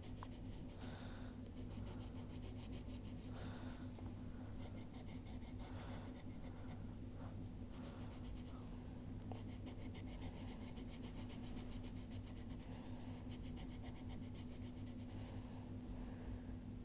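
Black colour pencil scratching on paper in quick repeated shading strokes, with brief pauses between runs, over a steady low hum.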